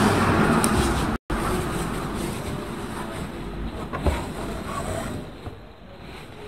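Steady background rumble and hiss with no speech. It cuts out completely for an instant about a second in, has one soft knock about four seconds in, and grows fainter near the end.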